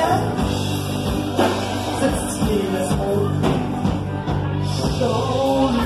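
Rock band playing a song, with singing over drums and instruments.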